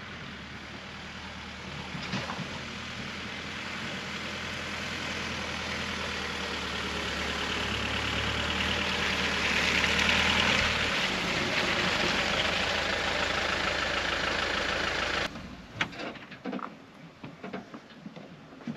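A van engine running as it drives slowly up a grassy track towing a loaded boat trailer, growing louder until it is close about ten seconds in. The sound drops away suddenly about fifteen seconds in, and a few sharp knocks and clicks follow.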